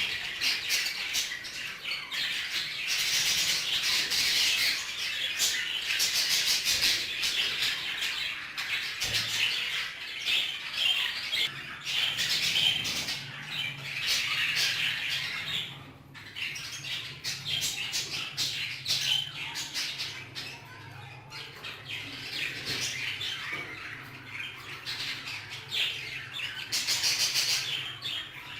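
A flock of frilled budgerigars chattering, chirping and squawking continuously, many birds at once.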